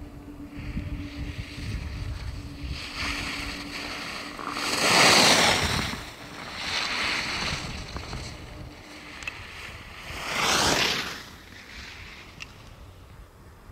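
Skis carving and scraping on packed snow through a series of slalom turns, each turn a surging hiss. The loudest come about five seconds in, as the skier passes close, and again near ten and a half seconds. Wind rumbles on the microphone underneath.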